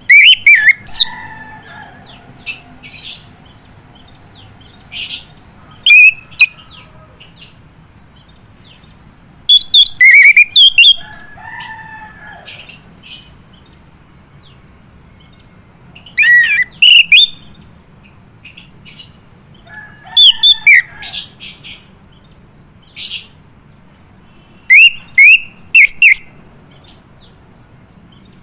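Male chestnut-capped thrush (anis kembang) singing: loud short phrases of gliding whistles mixed with sharp chattering notes, coming every few seconds with pauses between.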